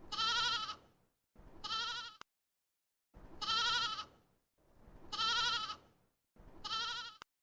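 Sheep bleating five times, each bleat about a second long with a quavering tremble, separated by short silent pauses.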